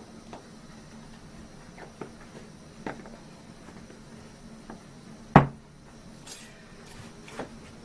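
A few light clicks and knocks of small objects being handled on a workbench, with one louder thump about five and a half seconds in, over a low steady hum.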